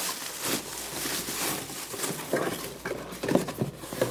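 Cardboard box and packaging being handled and rummaged through: irregular rustling, scraping and light knocks.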